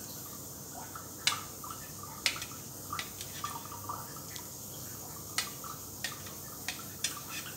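Kitchen knife cutting through set, steamed egg white on a stainless steel plate, the blade clicking sharply against the metal a handful of times at uneven intervals.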